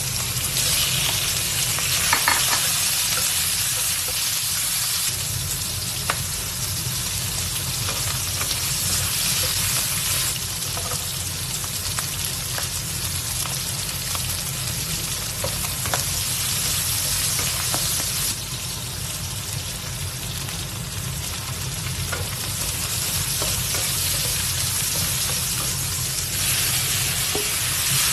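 Food sizzling loudly as it is stir-fried in a hot pan, with the spatula clicking against the pan now and then; the sizzle swells and eases a few times. A steady low hum runs underneath.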